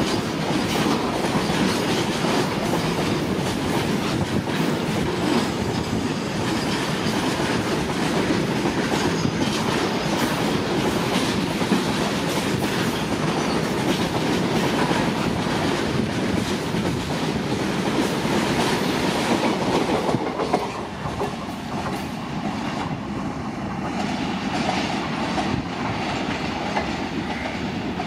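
A train's cars rolling past at speed, wheels clattering over the rail joints. About 20 seconds in the noise drops sharply, as the end of the train goes by, and a fainter rumble carries on.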